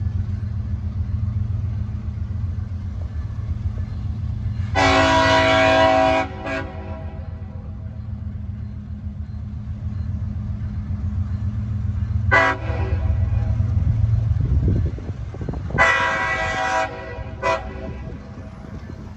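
Nathan K5HL five-chime air horn on a CSX GE ET44AH diesel locomotive sounding a series of blasts: a long one about five seconds in with a quick toot after it, a short toot around twelve seconds, then another long blast with a quick toot near the end. Under the horn, the locomotive's diesel engine drones steadily.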